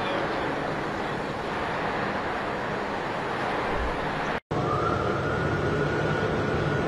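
Steady steel-plant machinery din. It breaks off about four and a half seconds in and comes back a little louder, now carrying a long, level high whine, where an overhead crane is moving a glowing forging.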